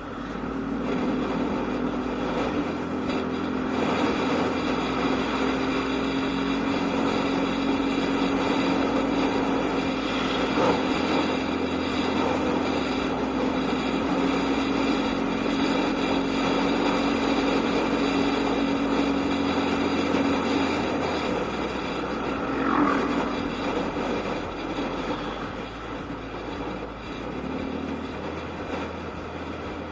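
Motorcycle riding: the engine runs at a steady speed under road and wind noise, holding one even drone that fades out about twenty seconds in.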